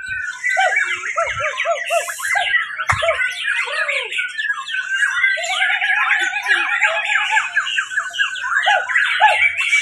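Several caged white-rumped shamas (murai batu) singing at once, a dense, unbroken mix of overlapping whistles, chirps and rapid trills, with lower looping notes in the first second or two and a long held phrase about five seconds in.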